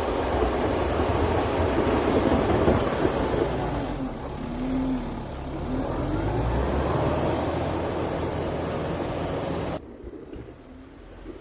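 Kubota M7060 tractor's diesel engine running steadily, with a few rising and falling whines near the middle. The sound drops off suddenly near the end.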